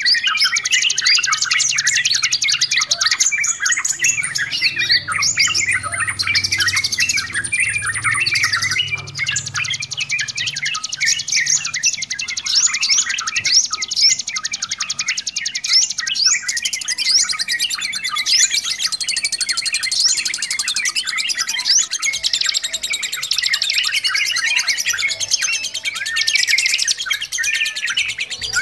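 A noisy chorus of yellow-vented bulbuls chattering without a break, dense overlapping chirps and quick gliding whistled notes.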